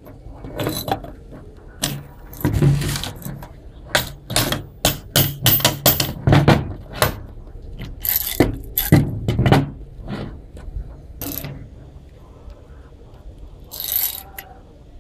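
Bicycle freewheel ratchet wrench clicking in irregular runs as its pipe handle is swung back and forth, with knocks of metal being handled.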